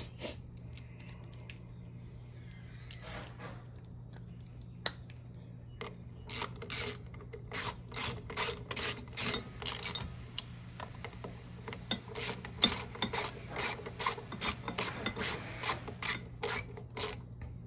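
Socket ratchet clicking in two runs of quick, evenly spaced strokes, about three a second, as a 7mm socket on an extension turns in a lawn mower's carburetor mounting bolts.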